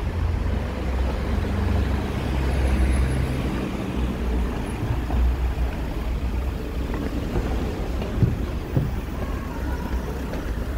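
Town street traffic: cars running past under a steady low rumble.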